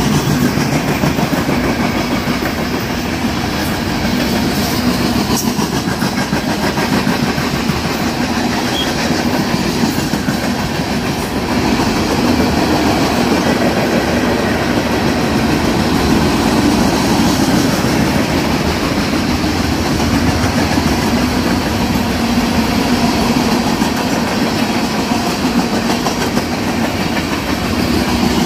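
Freight cars of a BNSF manifest train rolling past, their steel wheels on the rail making a steady, loud noise.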